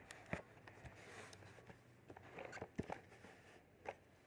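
Faint, irregular plastic clicks and knocks from a stick vacuum cleaner's parts being handled and pushed together: a part that is not yet seating properly. There are about half a dozen short taps, the sharpest about half a second in and near the middle.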